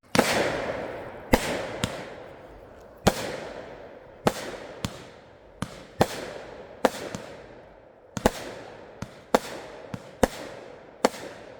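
Consumer fireworks going off: about fifteen sharp bangs at uneven intervals of half a second to a second and a half, each dying away over a second or so. The loudest come right at the start.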